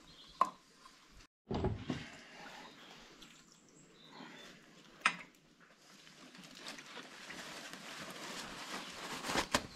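Hand-work handling noise from a tractor fuel-filter change: a few sharp clicks and knocks of metal parts, about half a second in and again around five seconds. A rustle builds over the last few seconds, with more clicks near the end.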